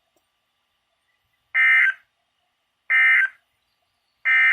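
Emergency Alert System end-of-message code played by a Midland WR120EZ weather radio: three short bursts of screechy digital data tones a little over a second apart, signalling the end of the severe thunderstorm warning.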